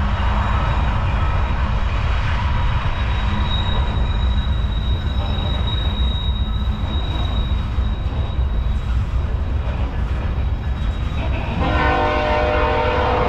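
Diesel-hauled freight train rumbling past, with a thin high wheel squeal in the middle. Near the end the locomotive's multi-note air horn starts sounding and holds.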